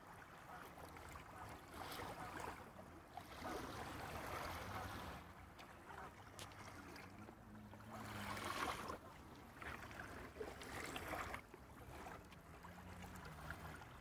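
Small waves lapping on a sandy shore, faint, washing in as soft swells every few seconds.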